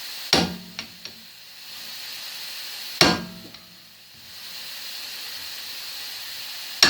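Three sharp metal strikes about three seconds apart, each ringing briefly with a small rattle after, as a T40 Torx tool is driven to break loose a rotor retaining screw. A steady hiss runs underneath.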